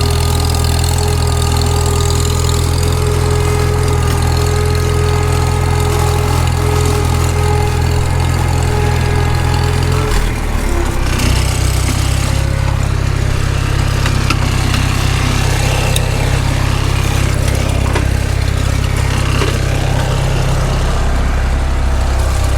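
Farmall Super M tractor's four-cylinder engine running steadily, its note changing once about ten seconds in.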